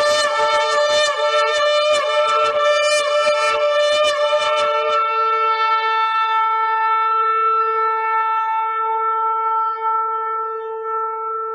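Shofar (ram's-horn trumpet) being blown: a quick run of short broken blasts for about the first five seconds, then one long held note.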